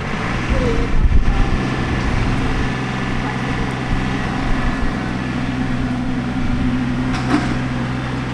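Backhoe's diesel engine running steadily with an even drone, a little louder about a second in, and a short knock near the end.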